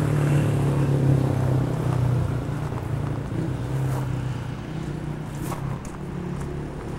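A motor vehicle's engine running with a steady low hum, fading over the last few seconds.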